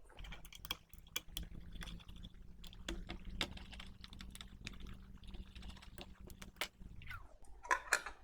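Many sharp clicks and rattles of screws and small metal parts being handled while the circuit board is taken out of a desktop power supply's case. Under them a small motor hums steadily, then winds down and stops about seven seconds in.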